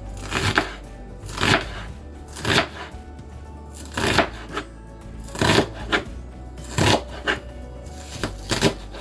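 Knife chopping on a cutting board in slow, uneven strokes, about one a second, with background music underneath.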